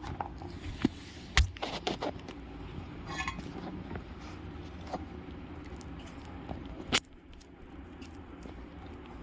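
Scattered clicks, taps and light scraping from hands working on a soldering and desoldering station's tool, over a steady low hum. A sharp click comes about seven seconds in, after which the hum is a little quieter.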